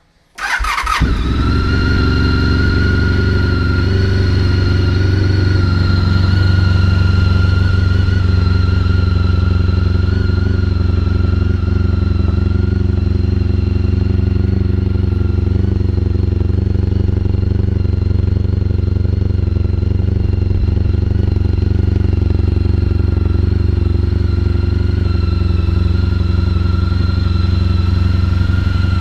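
Honda ST1300's V4 engine, breathing through Delkevic oval carbon-fibre silencers with the baffles removed, starts about half a second in and settles into a steady, loud idle.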